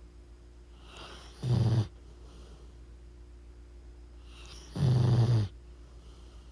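A sleeping dog snoring: two loud, low snores about three and a half seconds apart, each under a second long.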